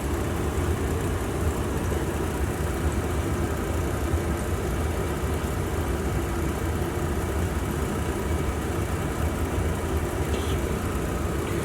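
Steady low mechanical hum, even and unchanging.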